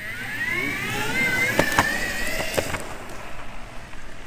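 Belt-drive electric skateboard pulling away: the motor whine rises in pitch for about two seconds as it accelerates, then levels off and fades, with a few sharp clicks in the middle.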